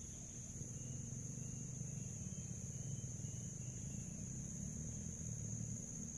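A steady, high-pitched insect chorus drones without a break over a low rumble.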